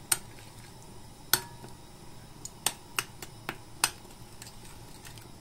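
Metal spoon stirring a milk-and-yeast starter in a glass bowl, clinking against the glass about six times at irregular intervals.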